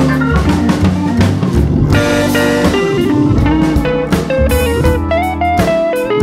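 Background music: a guitar melody over bass and a drum kit with a steady beat, in a blues style.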